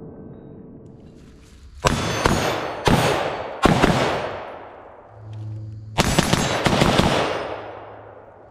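Suppressed FN SCAR 16S rifle in 5.56×45 with a 10-inch barrel and Dead Air Sandman S suppressor, firing two quick strings of about four shots each, a couple of seconds apart. Each shot trails off in a long echo.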